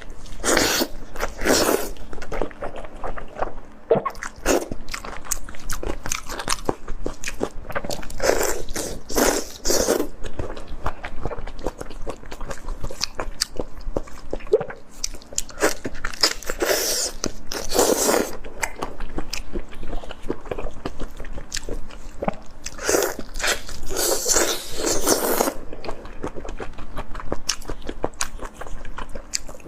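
Close-miked eating: rapid biting and chewing with wet smacks and clicks, and louder crunchy stretches every few seconds.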